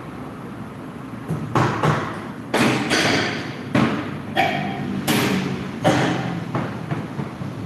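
A run of irregular knocks and clatters of tools and parts being handled in a workshop, about eight or nine of them, some with a short metallic ring.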